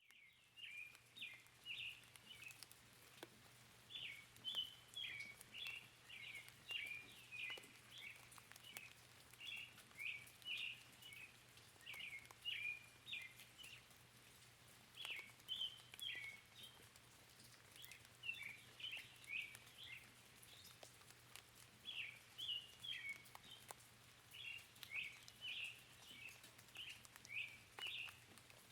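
Songbird chirping in quick clusters of short, high calls, repeated every second or so, over faint rain pattering and a low steady hum.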